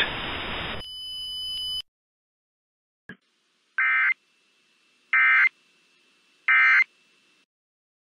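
The spoken alert message ends about a second in. Then come three identical short bursts of Emergency Alert System digital data tones, about 1.4 s apart: the end-of-message code that closes an EAS broadcast.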